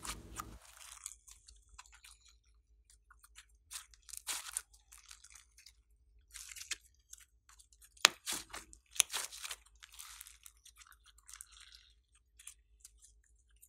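Hands squishing, folding and stretching glossy slime: irregular sticky crackles and small pops, with one sharp pop about eight seconds in.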